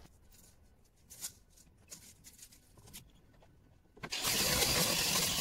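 A few faint knocks, then a handheld power tool starts about four seconds in and runs loudly and steadily against the blockwork.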